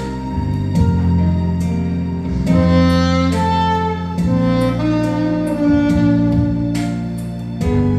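Saxophone playing a slow melody of long held notes over an accompaniment with a steady beat.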